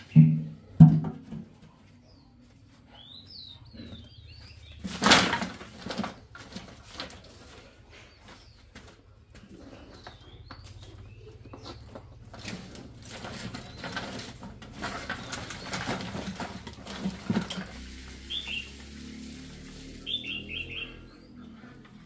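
Handling noises: two heavy clunks of a large cooking pot being lifted off an earthen stove at the very start, a loud clatter about five seconds in, then scattered tapping and rustling as bamboo sticks and a hose are handled. Small birds chirp briefly a few times.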